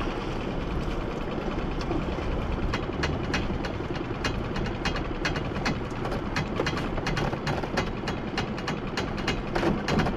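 Small fishing boat's engine idling with a steady low hum, overlaid from about two and a half seconds in by a quick, irregular run of sharp clicks.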